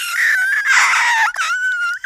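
A long, high-pitched scream held on a wavering pitch, breaking off briefly a little past halfway and then carrying on.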